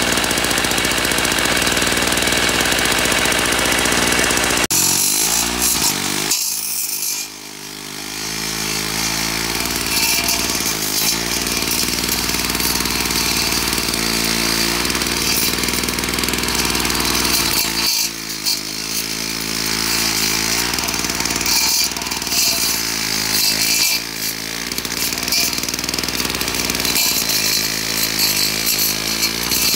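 Victa 160cc two-stroke engine of a Tilt-A-Cut lawn edger running at working speed while its vertical blade cuts a turf edge. The engine note sags and picks back up several times as the blade bites into the soil.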